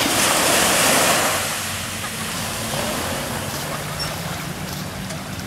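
Small sea wave breaking and washing up a sandy beach, loudest about a second in, then easing to a gentle lapping of shallow water. A low steady hum runs underneath.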